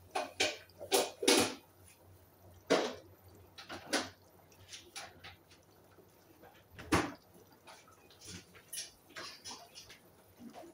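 Meat-and-potato curry simmering under the lid of an aluminium pot on a gas hob: irregular bubbling pops and ticks, one of them sharper about seven seconds in.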